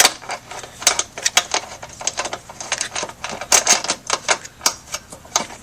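Irregular metallic clicking and clinking as the lawnmower wheel bolt is threaded onto the axle and run down with a wrench.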